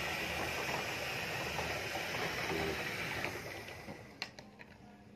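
Clockwork motor of an overturned plastic toy dump truck whirring with a steady hiss, then winding down and stopping a little past halfway; one small click follows.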